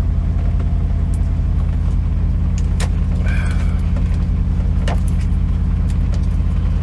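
Semi truck's diesel engine idling steadily, heard from inside the cab, with a few sharp clicks about three and five seconds in.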